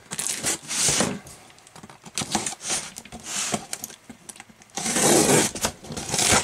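Box cutter blade slitting packing tape along a cardboard box seam, in several short scraping strokes and one longer, louder slice about five seconds in, with cardboard rubbing as the box is handled.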